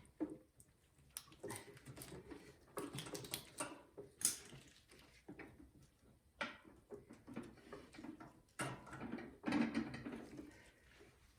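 Irregular light clicks, taps and rustles of hands and tools on metal parts as a carburetor is fitted back onto a snowblower engine, with one sharper click about four seconds in.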